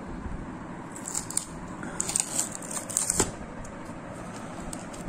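Foil seal on a plastic jar being broken and peeled off by hand: crinkling and tearing with scattered clicks, busiest between about one and three seconds in.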